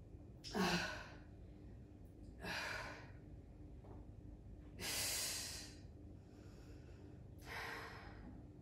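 A woman breathing out hard with each rep of a lying leg-raise core exercise: four forceful exhalations, about two and a half seconds apart, the first with a short grunt.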